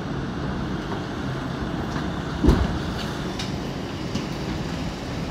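Running noise heard from inside a moving Pullman Standard R46 subway car: a steady rumble with one sharp knock about two and a half seconds in, followed by a few lighter clicks.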